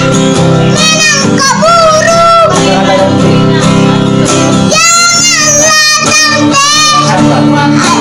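A young boy singing a song with wavering, drawn-out notes, accompanied by a strummed acoustic guitar. The voice breaks off for about two seconds near the middle while the guitar carries on.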